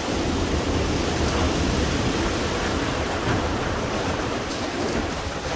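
Ocean surf rushing in through a gap between boulders and washing over a pebble beach: a steady noise of breaking water.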